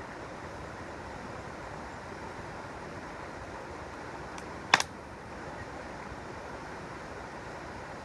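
Mountain stream rushing steadily, with a campfire giving one sharp loud pop, preceded by a faint tick, about halfway through.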